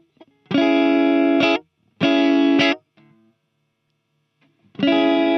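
Electric guitar played through a Sonicake Levitate reverb and delay pedal: three strummed chords, the first two stopped short after about a second and under a second, the third starting near the end.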